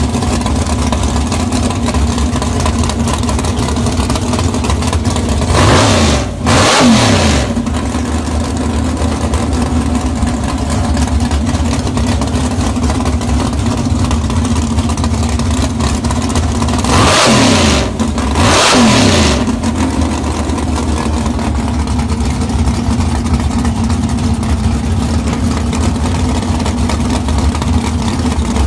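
Drag race car engine idling loudly with a deep rumble, revved hard twice: about six seconds in and again around seventeen to nineteen seconds, each time in two quick pulses.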